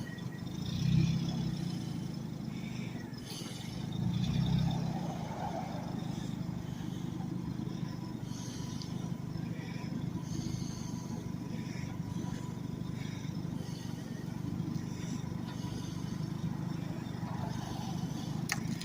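A vehicle engine running steadily at low speed, swelling briefly about a second in and again around four seconds in.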